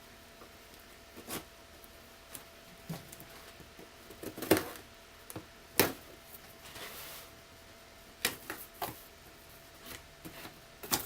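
A shipping box being opened by hand: scattered knocks and clicks of cardboard and packing being handled, the two sharpest about four and a half and six seconds in, with a short rustle just after.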